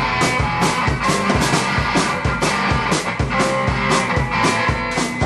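Rock jam of two guitars and a drum kit, the drums hitting a steady beat about twice a second under sustained, ringing guitar chords.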